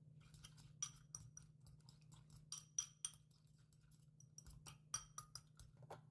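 Irregular light clicks and taps of kitchen utensils against dishware, some with a brief ringing tone, over a low steady hum.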